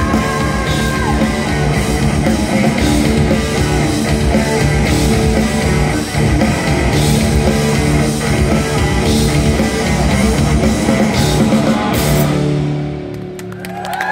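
Live rock band playing loud with electric guitars, bass guitar and drums. Near the end the full band drops out, leaving a held low note ringing.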